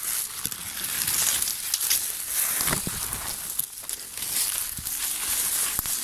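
Walking through dense forest undergrowth: leaves and twigs rustling and crunching against the body and underfoot, with scattered small crackles.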